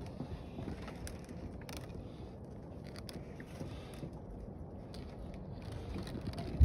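Low wind and water noise around a small open boat, with a few faint clicks and scrapes as a fishing handline is hauled in over the gunwale, and a louder knock right at the end.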